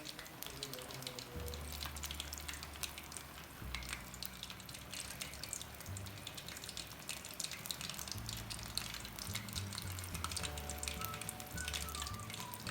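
Background music with a slow line of low bass notes, over a dense, steady crackle of many small pops.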